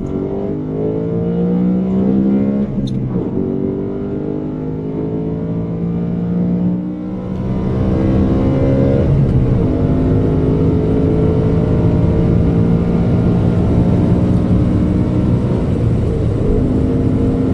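BMW M3 E92's naturally aspirated 4.0-litre V8 heard from inside the cabin, accelerating through the gears of its manual gearbox. The engine note climbs in pitch, breaks and drops about 3, 7 and 9 seconds in as gears are changed, then holds a steady note under load.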